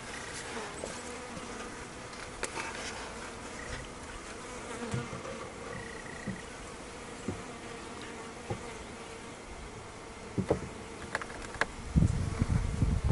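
Honey bees from a freshly installed package buzzing in a steady hum around the hive, with a few light knocks as the wooden hive parts are handled and a louder low noise for about a second near the end.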